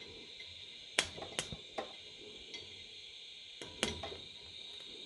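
Scratch-start TIG arc run off two car batteries being struck: a handful of sharp clicks as the tungsten touches the steel, three about a second in and two a little before four seconds, over a steady hiss of shielding gas flowing from the torch.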